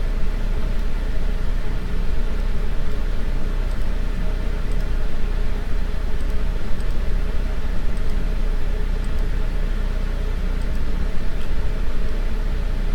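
Steady low hum with a constant hiss, no pitch change, and a few faint, soft clicks here and there.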